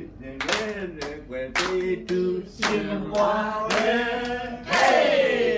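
Voices singing a song while people clap along in time, about two claps a second; near the end a loud sung note slides down in pitch.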